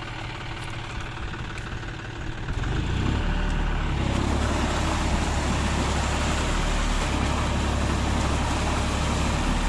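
John Deere tractor's diesel engine running, quieter at first, then growing louder about three seconds in and holding steady as it works against the mud.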